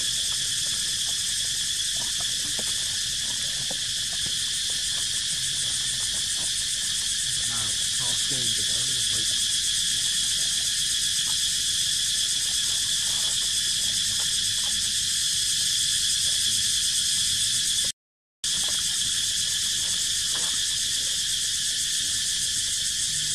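Dense, steady chorus of insects buzzing at a high pitch, with no let-up. It cuts out completely for a moment about eighteen seconds in.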